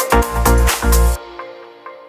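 Electronic background music with a heavy beat that cuts off about a second in, leaving a fading echo of its last notes.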